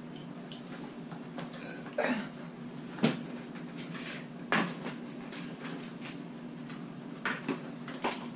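Scattered knocks and clatters of things being handled and bumped, the sharpest about two, three and four and a half seconds in, over a steady low hum.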